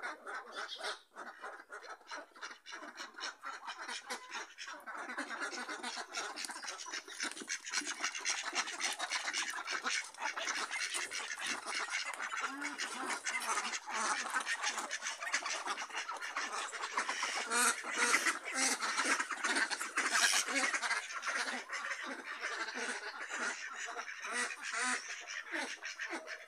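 Domestic ducks quacking, many quick calls overlapping in a continuous chatter that grows louder in the middle.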